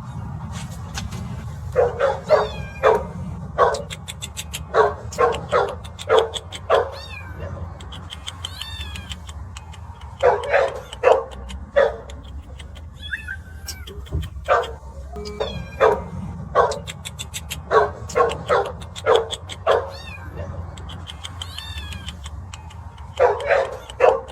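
Stray kitten crying, short repeated meows coming in bursts of several calls with pauses between, over a steady low rumble.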